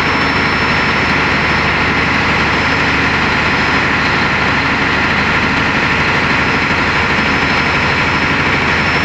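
Diesel train engine idling steadily, a low, even hum with a constant hiss above it.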